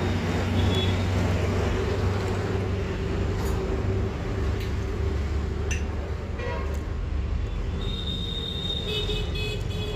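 Steady low rumble of road traffic with vehicle horns honking, several short toots in the second half.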